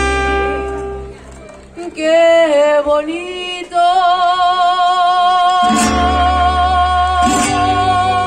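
Mariachi band playing: a chord rings out and fades, then a voice glides up into one long held high note with vibrato. Two strummed chords with deep guitarrón bass sound beneath the held note.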